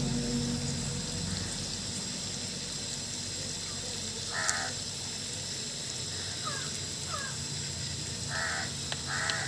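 A crow cawing: three short, harsh calls, the first about four seconds in and two close together near the end, with faint chirps of smaller birds between them.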